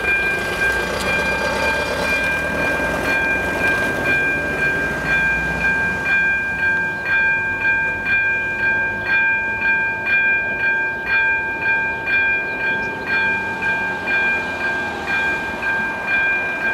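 Level-crossing electronic warning bell ringing steadily, a repeating chime of about two strokes a second, warning that a train is coming. A car drives past in the first few seconds.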